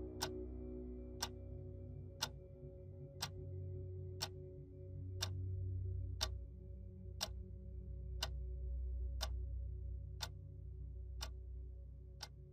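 Wall clock ticking steadily, about once a second, over a faint low drone.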